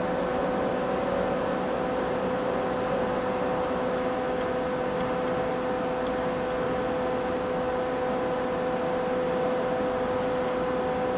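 Steady machine hum with a constant whine from the CNC knee mill's DC servo axis drive while the table is jogged along its axis. The whine holds one pitch and level throughout.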